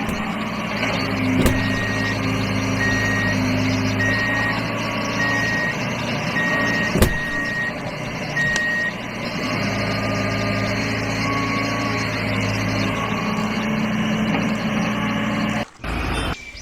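Electronic sound effects of a toy truck: an engine hum with a reversing beeper beeping about one and a half times a second for several seconds. There are two sharp knocks along the way, and the sound cuts off abruptly near the end.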